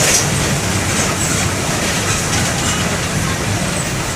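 Mercedes-Benz OM-924 LA four-cylinder turbodiesel running steadily in a moving city bus, heard from inside the cabin as a low rumble with road noise and light rattles.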